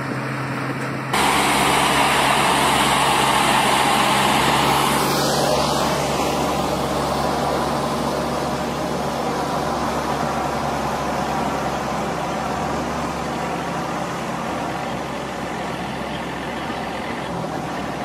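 A heavy truck engine running steadily, cut off about a second in by louder, rough, steady noise of engines and machinery working, which eases slightly after a few seconds.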